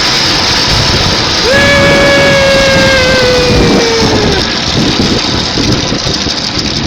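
River-crossing cable car basket riding along its cable: a long, steady squeal from the pulley, sagging in pitch as it fades, over a loud, steady rushing noise.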